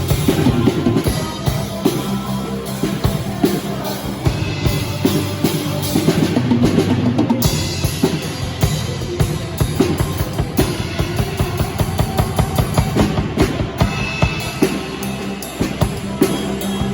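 Live band playing a worship song at rehearsal, driven by a drum kit with bass drum and snare over bass and other instruments, in a steady rhythm.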